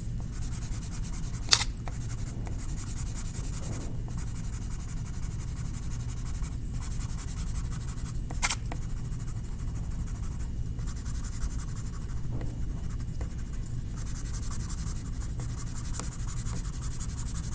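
A drawing tool scratches steadily across paper in repeated strokes as a sky is coloured in blue, with brief pauses between strokes. Two sharp taps come about a second and a half in and again about eight and a half seconds in.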